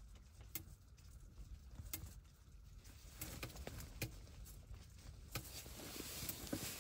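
Faint, irregular light ticks and patter from the ice-fishing tent's fabric wall as it stirs in the wind, over a low rumble.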